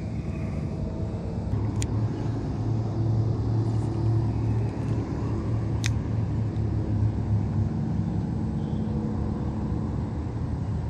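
A steady low mechanical hum, like a motor running, with two short sharp clicks about two seconds and six seconds in.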